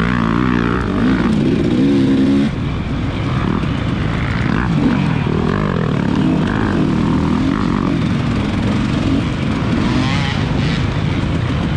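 Dirt bike engine revving and easing off again and again under the rider's throttle, its pitch rising and falling. The level drops suddenly about two and a half seconds in.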